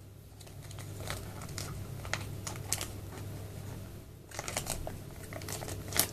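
Paper rustling and crinkling as a small printed paper game-and-instructions leaflet from a toy capsule is handled and unfolded: scattered short crackles, with a busier run about four seconds in and another near the end.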